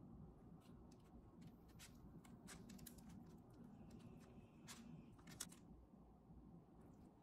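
Near silence over a low steady room hum. A scatter of faint soft clicks and rustles comes between about one and five and a half seconds in, from hands rolling thin raw pork belly slices around kimchi on parchment paper.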